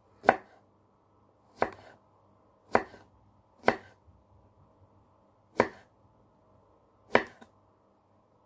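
Kitchen knife chopping a cucumber into small pieces: six sharp knocks of the blade cutting through onto the surface below, spaced unevenly about one to two seconds apart.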